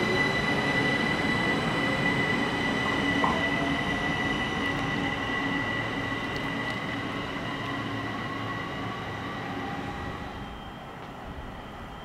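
ÖBB class 4024 Talent electric multiple unit pulling out and accelerating away: the electric drive's whine rises in pitch over a steady high whine, and the train fades as it draws off.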